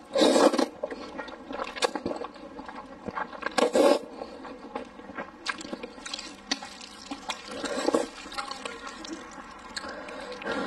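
Noodles being slurped into the mouth in three loud wet sucks, near the start, about four seconds in and about eight seconds in, with wet chewing and smacking in between.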